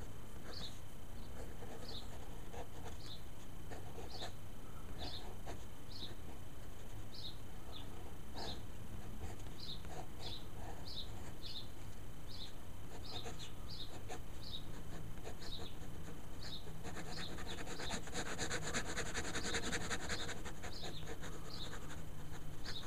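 Uni-pin fine-liner ink pen scratching rapid short hatching strokes on paper, loudest for a few seconds about three-quarters of the way in. A short high chirp repeats about twice a second throughout, over a steady low hum.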